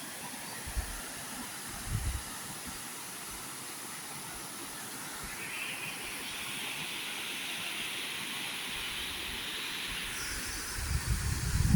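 Steady rushing hiss of a waterfall. From about halfway a higher hiss joins in and stops shortly before the end, and low rumbling bumps come in near the end.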